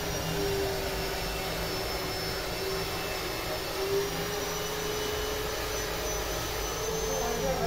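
Pouch packing machine running: a steady mechanical hum with a thin high whine, wavering slightly. The whine drops in pitch near the end.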